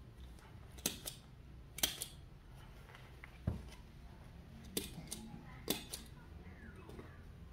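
Several sharp, irregular snips or clicks from a small metal hand tool worked at a baby macaque's disposable diaper, with soft rustling of the diaper between them.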